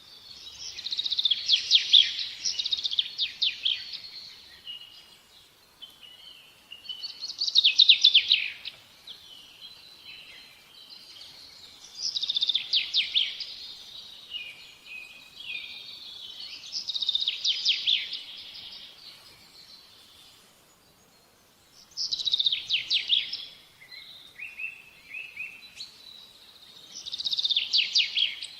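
A songbird singing short, rapid trilled phrases, one every five seconds or so, six in all.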